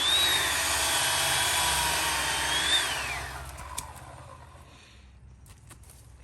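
Electric chainsaw running at full speed with a steady high whine, then the trigger is released about three seconds in and the motor winds down with a falling pitch. Faint clicks and knocks follow.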